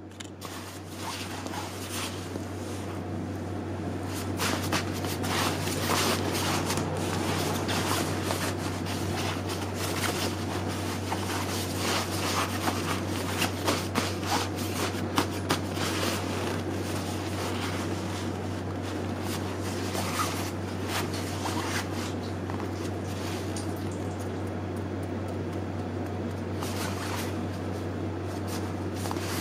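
Nylon shell fabric of a down jacket rustling and swishing as hands press, smooth and lift it, with louder crinkles around the middle. A steady low hum runs underneath.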